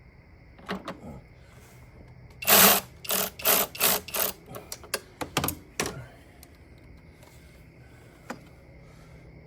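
A tool running the intake manifold bolts of a Nissan Sentra in a string of short, rapid bursts for about three seconds, after two brief clicks near the start. These are typical of bolts being run in before the tightening sequence.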